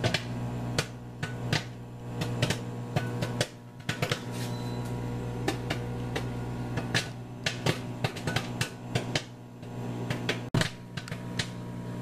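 Microwave popcorn popping in its bag inside a running Frigidaire FFCM1134LS 1100-watt countertop microwave. Rapid, irregular pops sound over the oven's steady hum.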